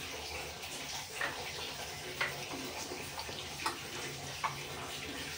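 Bay leaf frying in hot oil in an iron kadai: a steady sizzle with a few sharp crackles.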